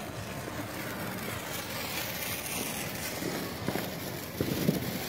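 Ground firework burning on the grass with a steady hiss, with a few soft knocks near the end.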